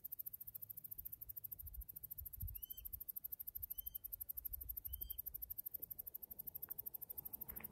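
A bird gives three short, high call notes, about a second apart, over a faint low rumble of wind on the microphone.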